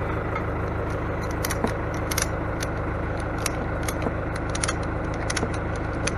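Irregular sharp metallic clicks and clinks, a dozen or more, over a steadily idling engine.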